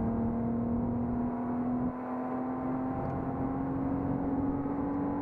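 Car engine heard from inside the cabin, its note rising slowly and steadily as the car gathers speed, over low road rumble.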